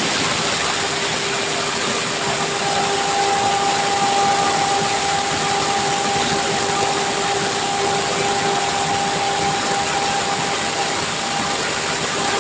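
A CNC machine running steadily: an even mechanical rush with a low, steady whine, and a higher whine that joins about two and a half seconds in.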